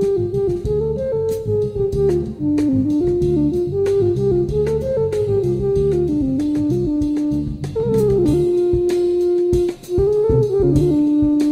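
Instrumental jazz music: a lead melody line wandering up and down over bass and drums, settling into longer held notes near the end.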